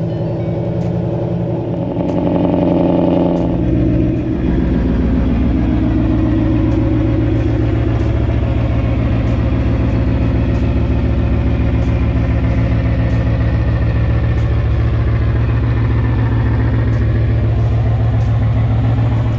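2012 Mustang Boss 302's 5.0-litre V8 running loud under load. About three and a half seconds in, its note drops and settles into a steady, unchanging drone.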